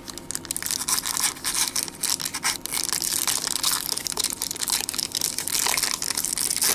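Foil wrapper of a baseball card pack crinkling and crackling as hands peel it open along its sealed seam, a continuous irregular crackle.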